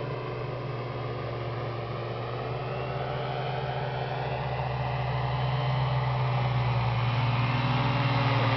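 Vector 627 ultralight's engine running steadily at low approach power, growing louder as the aircraft comes in to land. Near the end its pitch begins to fall as it touches down and rolls out.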